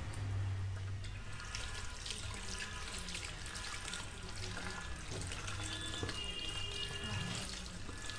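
Water running from a salon shampoo-basin tap, splashing over wet hair and into the basin as the hair is rinsed by hand, with a steady low hum underneath.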